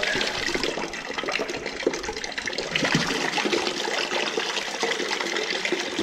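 Water pouring from an opened steam-boiler pipe fitting and splashing into a bucket of muddy sludge water, a steady rush. The piping is being drained to flush out mud and sludge.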